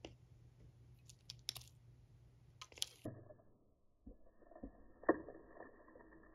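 Faint handling sounds of metal feeding tongs against a clear plastic enclosure as a cricket is offered: a few sharp clicks, then several soft knocks, the loudest just after five seconds.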